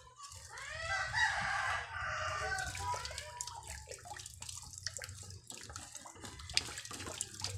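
A rooster crows once, a long call about two and a half seconds long starting about half a second in. Then come many short clicks and knocks as a clear plastic water-filter housing is fitted over its cartridge and handled.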